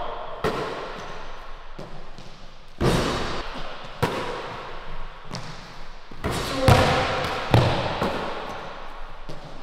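Basketball hitting a hardwood gym floor several times, single thuds spaced irregularly a second or more apart. Each hit echoes in the large gym.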